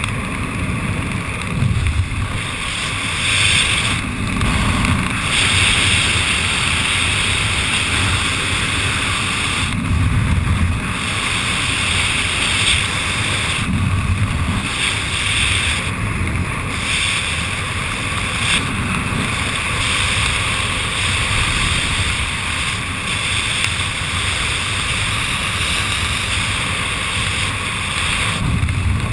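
Airflow rushing over the camera microphone as a skydiver descends under an open parachute canopy, a steady noise that swells and eases in gusts every few seconds.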